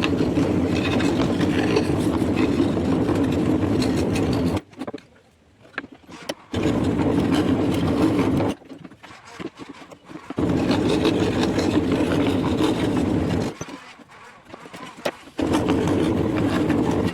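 Scroll saw running in four bursts of two to four seconds, each starting and stopping abruptly, with short quiet gaps between them.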